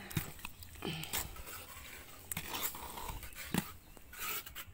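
Wet cement mortar being stirred by hand in a metal bucket: irregular scraping and sloshing, with a few brief voice-like noises.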